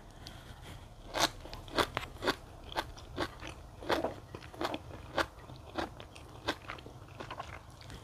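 A person chewing a mouthful of blanched sea kale leaf with chili paste: short, irregular crunches, about two a second.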